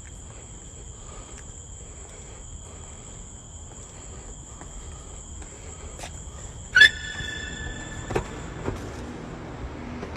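Crickets trilling steadily in a high continuous tone. About two-thirds of the way through, a sudden loud ringing sound cuts in and hangs for about a second, followed by a couple of fainter knocks.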